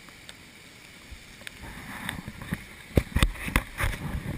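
Faint steady rush of water, joined about halfway through by rising rustling and then a run of sharp knocks as a helmet-mounted action camera is jostled against its microphone.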